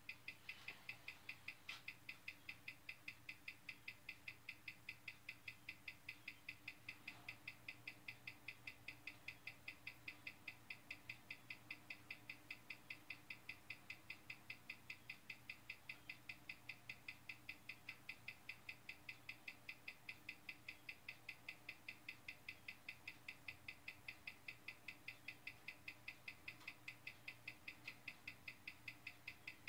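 Hamilton calibre 756 watch movement ticking, faint, sharp and perfectly even at about five ticks a second. It is running fast with a replacement balance fitted, its rate fluctuating between plus 85 and plus 107 seconds a day.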